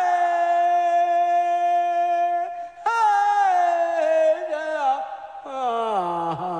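Background music: a high singing voice holding long, clear notes, each phrase starting with a swoop. One note is held for over two seconds, and the later phrases sink lower near the end.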